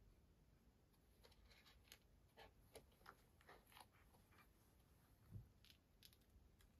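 Faint crunching and clicking as a Siberian cat eats dry treats out of a plastic puzzle feeder board, a quick run of small crunches and clicks. One soft low thump about five seconds in.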